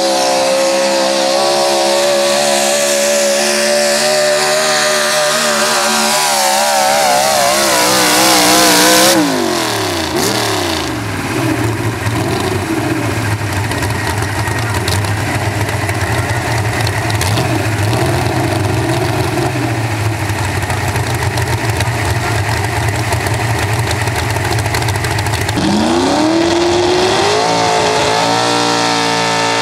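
A 1971 Chevrolet pulling truck's engine at full throttle dragging a weight sled, its revs wavering and climbing, then dropping off sharply about nine seconds in as the pull ends. An engine then runs at low revs. Near the end another pulling truck's engine revs up, rising in pitch as it starts its pull.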